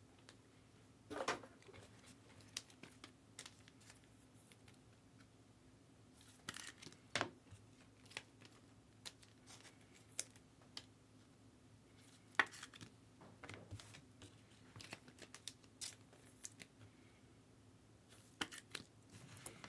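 Faint rustling and tearing of trading-card pack wrappers being opened and cards handled, with a few sharper crinkles scattered through.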